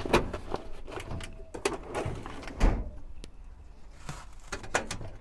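Irregular knocks and clatter of tools and supplies being handled and moved around on van storage shelving, with the heaviest thud about two and a half seconds in.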